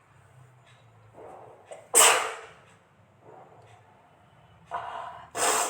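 A woman sneezing twice, each sneeze preceded by a short inhale. The first, about two seconds in, is the louder. The sneezes are set off by tickling inside her nose with the tip of a shawl.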